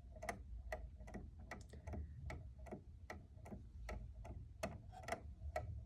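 E.N. Welch parlor clock's escapement ticking, about two to three ticks a second with some ticks unevenly spaced. The uneven beat comes from an escape wheel whose teeth are not all the same length, one too long and others too short.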